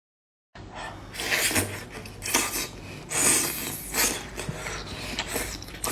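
Close-miked eating of sea snails: noisy sucking and crunching bursts about once a second, with small clicks of shell and utensils in between.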